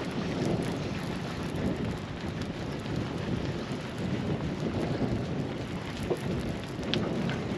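Wind rumbling on the microphone over the sea on a small open boat, a steady rushing noise without a break, with a couple of faint ticks near the end.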